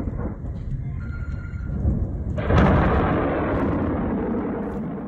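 Thunder during a severe night storm: a low rumble, then a sudden loud crack about two and a half seconds in that rolls away slowly.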